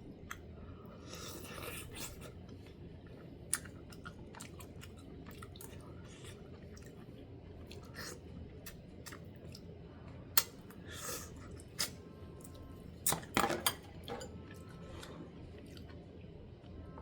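A person chewing and eating braised chicken close to the microphone, with scattered small clicks and a few sharper knocks, the loudest about ten seconds in and a cluster around thirteen seconds.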